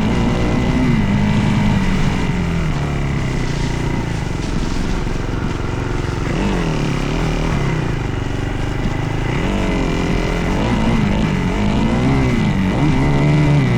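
Dirt bike engine running hard while riding, its pitch rising and falling over and over as the throttle is opened and closed, with quicker blips in the second half.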